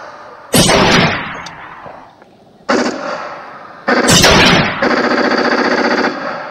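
Staged gunfire: three separate loud shots, each ringing out and dying away, then a rapid burst like automatic fire lasting about a second, near the end.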